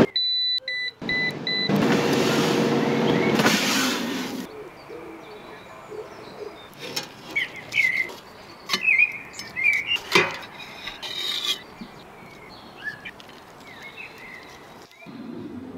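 An EraTec air fryer's touch panel beeping in a quick run of short beeps as it is pressed, followed by a loud rushing noise lasting about three seconds. Birds then chirp over a quiet background, with one sharp clack about ten seconds in.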